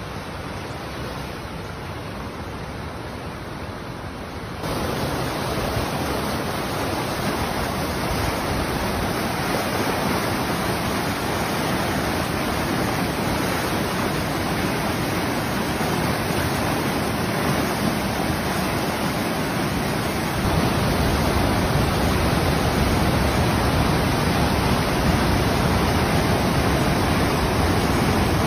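Swollen, muddy river in flood rushing by: a steady noise of fast-moving water that steps up in loudness about four and a half seconds in and again about twenty seconds in.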